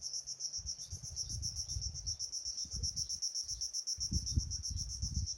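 Insects trilling: a steady, high, rapidly pulsing chorus that does not let up, over gusty wind rumbling on the microphone.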